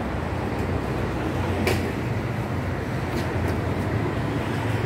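Steady rumble of road traffic, with a sharp click a little under two seconds in and two fainter clicks later.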